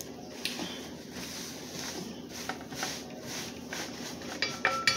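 Scattered light clicks and taps of tableware and food being handled at a table, ending in a quick cluster of clicks and a short ringing clink.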